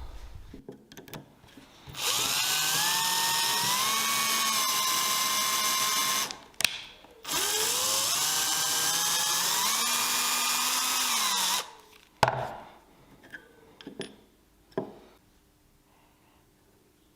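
Electric drill run twice for about four seconds each, its motor whine rising as it spins up and then holding steady, with a few light knocks after the second run.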